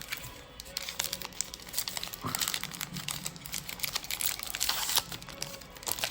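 Trading card packaging crinkling and tearing as it is opened by hand: a run of irregular, crackly rustles that grows busiest near the end.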